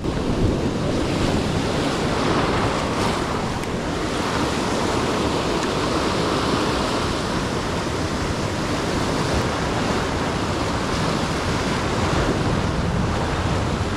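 Ocean surf breaking and washing over shoreline rocks: a steady, loud rushing that swells a little now and then.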